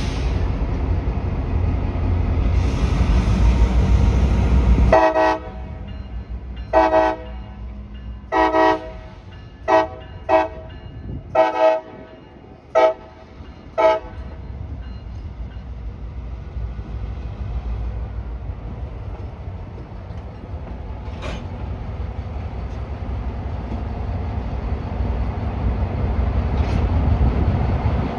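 Diesel locomotive horn sounding a run of about nine short blasts as the CSX GP38 locomotives move through the grade crossing. Before the horn, a loud low rumble drops off suddenly just as it begins. After it, the rumble of the locomotives' EMD diesel engines builds as they roll through.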